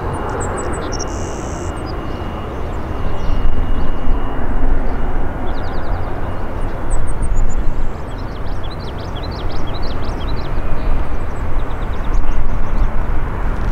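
Airliner passing on its landing at close range: a steady, loud rushing roar of jet engines and air that swells louder about three and a half seconds in.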